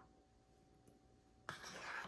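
Near silence with a few faint ticks, then about one and a half seconds in a sudden rasping rub against paper starts, the kind of sound made by writing, erasing or handling paper at a desk.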